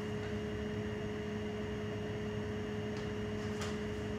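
Steady background hum and hiss, with two faint ticks about three seconds in.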